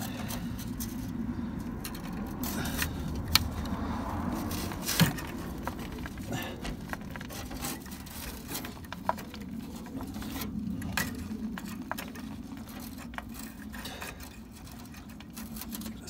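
Stanley tin snips biting and working at a frayed steel clutch cable, making irregular sharp metallic clicks and scrapes, the loudest a few seconds in. The cable is tough and resists the cut. A steady low hum runs underneath.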